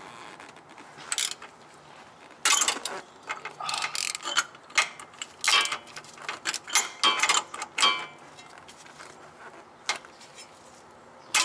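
A 3/8-inch drive ratchet on a long extension, clicking in short irregular bursts as it is swung back and forth, with a single click near the end. It is working at an oil filter seized onto its threaded stud.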